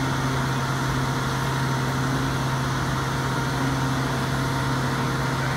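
Rotator wrecker's diesel engine running at a steady speed with a constant low hum, powering the winch as it pulls in the line to the sunken car.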